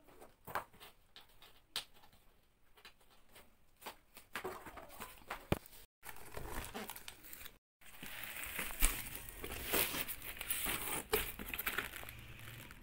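Packaging of a flat-packed dresser being handled and pulled open: crinkling and tearing of plastic and paper with scattered clicks and knocks, turning into denser, continuous rustling over the last few seconds.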